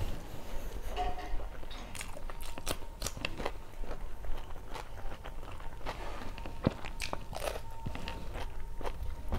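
Close-miked mouth sounds of a person eating: chewing and biting, with many short crunchy, wet clicks.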